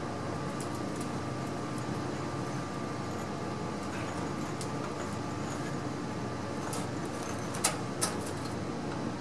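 Steady machine hum with light metallic clicks scattered through it and two sharp clanks near the end, from work with a jack and tank straps as a truck's fuel tank is lowered.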